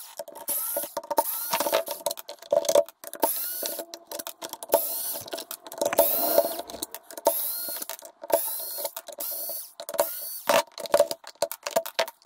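Electric screwdriver backing long screws out of a Bosch rear-carrier e-bike battery's plastic case. Its motor whirs in repeated short runs, with many sharp clicks in between.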